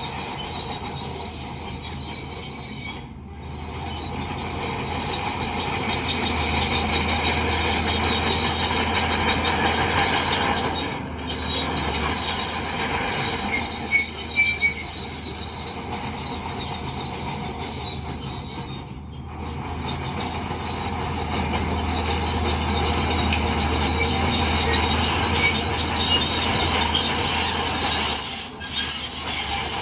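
Crawler bulldozer at work: its diesel engine runs steadily under varying load while its steel tracks squeal and clank. The sound swells and eases several times, with short breaks.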